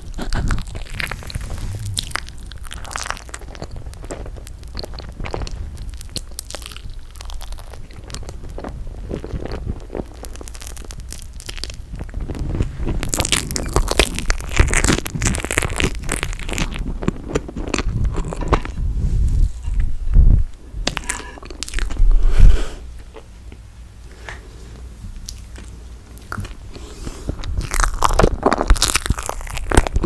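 Close-miked eating of toasted marshmallow: wet, sticky chewing with crunching bites, louder in the middle stretch and again near the end.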